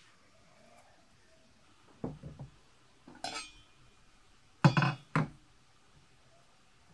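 Enamelware handled on a wooden table: a dull knock about two seconds in, a ringing clink a second later as the enamel pot's lid comes off, then two loud clanks about half a second apart as the lid is set down.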